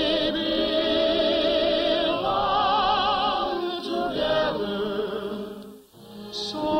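Radio-show orchestra playing a sweet, slow waltz song accompaniment, with long sustained notes carrying heavy vibrato. It breaks off briefly about six seconds in before the music starts again.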